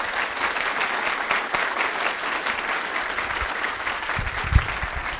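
Audience applauding, dense and steady, dying away just after the end. A few low thumps come about four seconds in.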